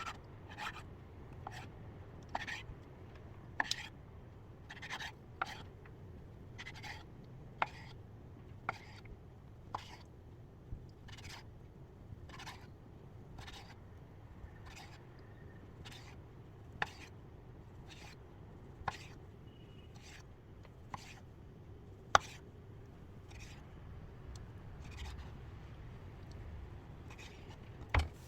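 A steady run of short rubbing or scraping strokes, about one and a half a second. A few sharp clicks come among them, the loudest about two-thirds of the way through, and a thump comes near the end.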